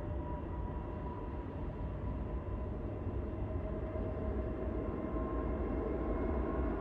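Airbus A321neo's twin Pratt & Whitney geared turbofan engines at takeoff thrust during the takeoff roll: a steady rumbling roar with two faint whining tones, growing gradually louder.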